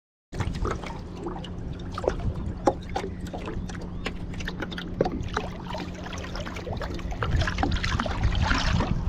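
Water sloshing and splashing against a small fishing boat, under a steady low hum, with many scattered knocks and clicks; the water noise grows louder near the end.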